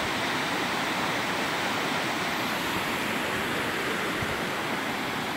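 Mountain river rushing over rocks and through rapids, a steady sound of running water, the river running fast with the rainy season.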